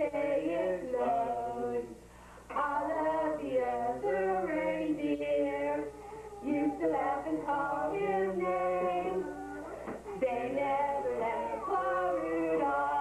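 A man's and a woman's voices singing a song together, unaccompanied, in phrases with short pauses between them.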